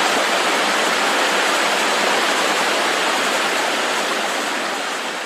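Steady rushing of water, fading slightly toward the end.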